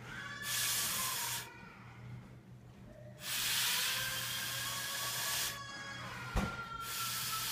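Air blown through a drinking straw onto a spinning top made of neodymium magnet spheres: three long hissing puffs with a short pause between them, a faint whistling tone running under the blowing. A single sharp click comes near the end.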